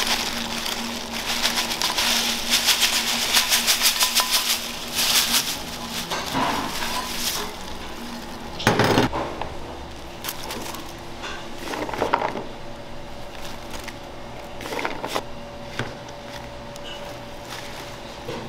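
Kitchen clatter of pots and utensils being handled, with a quick run of clicks in the first few seconds and a few separate knocks later on.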